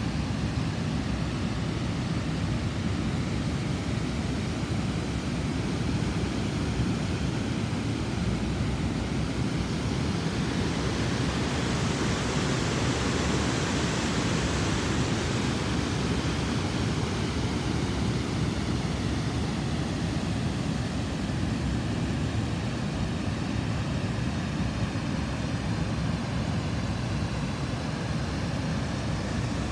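River water pouring over a weir: a steady, even rush, with more hiss for a few seconds around the middle.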